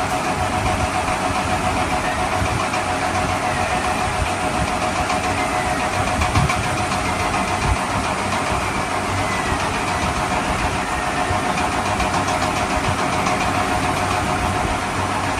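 Steady engine running sound at a constant pitch, with a fast, even pulse and a faint steady tone over it.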